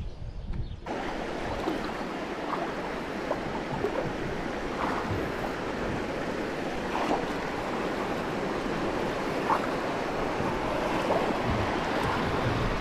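Steady rush of creek water running over a shallow rocky riffle, starting suddenly about a second in, with a few faint ticks of splashing.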